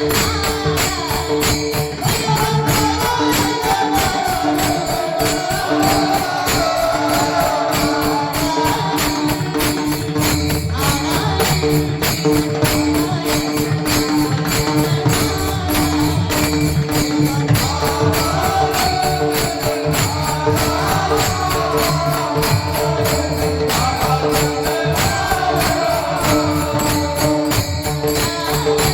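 Kirtan devotional music: small hand cymbals or a tambourine jingling in a fast, steady rhythm over a drum, with a held drone and a wavering melody line above.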